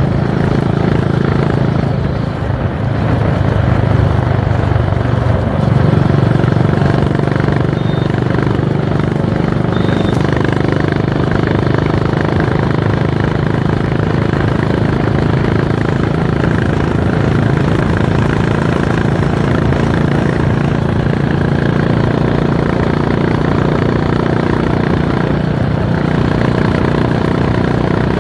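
Honda H'ness CB350's single-cylinder engine running under way at cruising speed, heard from the rider's seat. The engine note dips briefly about two seconds in, then picks up again and holds steady.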